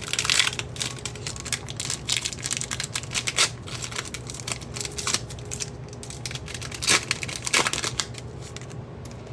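A foil trading-card pack being torn open and its cards handled and flicked through: crinkling of the wrapper and a run of sharp clicks and rustles from the cards.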